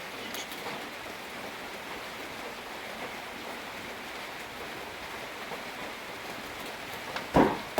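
Steady rain falling. Near the end, two loud knocks close together: strokes of a hand loom's beater.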